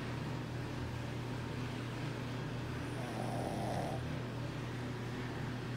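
A sleeping pug snoring, one rasping snore about three seconds in, over a steady low hum.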